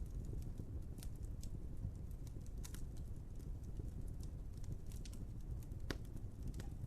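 Wood fire crackling: irregular sharp pops and snaps over a steady low rumble of flame, with the loudest snap about six seconds in.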